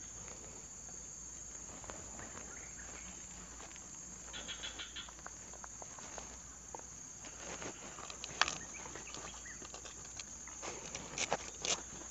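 Scattered clicks and rustles of hands tying and handling a woven bubu fish trap, the sharpest a little past eight seconds and twice near the end, over a steady high insect drone. A brief run of rapid chirps comes a little past four seconds.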